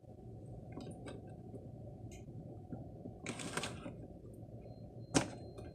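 Handling noises at a countertop over a steady low hum: scattered small clicks, a short rustle about three seconds in, and one sharp knock about five seconds in.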